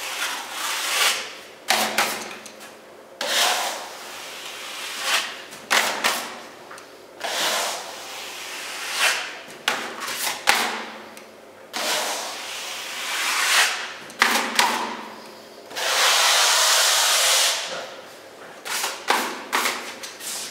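Steel smoothing blade scraping wet filler across a wall in about a dozen strokes. Each stroke swells into a scrape and ends in a sharp click as the blade comes off or is knocked. One longer, steady scrape comes near the end.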